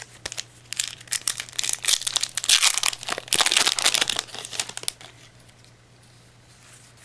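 Foil wrapper of a Yu-Gi-Oh Mega Tin 2014 booster pack crinkling and being torn open by hand. The crackling runs for about four seconds and stops near the end once the cards are out.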